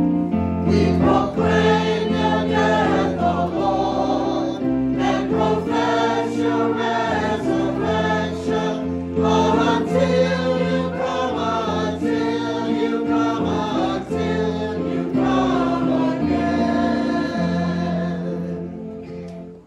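The Mass's memorial acclamation sung: voices singing over sustained keyboard chords, dying away near the end.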